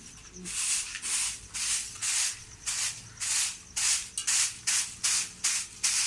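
Straw hand broom sweeping goat droppings across a concrete floor: swishing strokes, about two a second, coming faster over the last couple of seconds.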